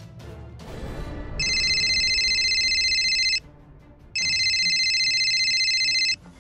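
Smartphone ringing with an incoming call: two trilling rings, each about two seconds long, with a short pause between them.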